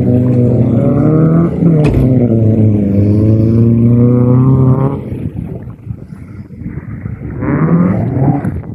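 Mazda MX-5's four-cylinder engine revving hard as the car is thrown round an autotest course, its pitch rising and falling with a brief lift just under two seconds in. The revs drop away about five seconds in, then climb again in a short burst near the end.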